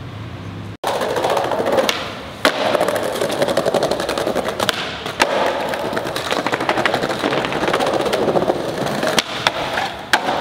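Skateboard wheels rolling and rattling over a tiled floor with a rapid run of small clicks, broken by several sharp board clacks and landings.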